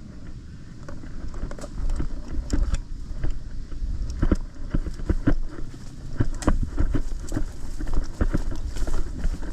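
Footsteps crunching through brush and undergrowth, about two steps a second, with wind rumbling on a body-worn action camera's microphone.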